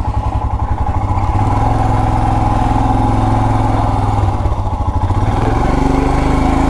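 Royal Enfield Himalayan 411's single-cylinder engine running with an even low pulsing beat as the motorcycle gets under way. Its note rises a little about a second and a half in and shifts again near the end.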